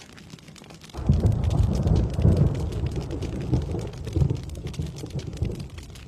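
Steady rain falling, with a low rumble of thunder that breaks in about a second in, peaks shortly after and slowly fades away.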